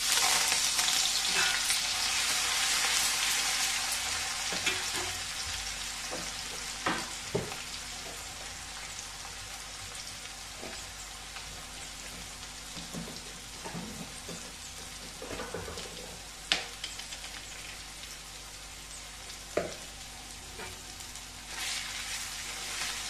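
Ginger-garlic paste frying in hot oil in a kadhai: a loud sizzle that starts suddenly and slowly dies down, with a few sharp clicks. The sizzle picks up again near the end as a spatula stirs the paste.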